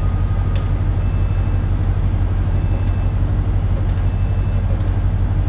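Steady low drone of a ship's machinery and ventilation on a container ship's navigation bridge, with faint high steady tones above it.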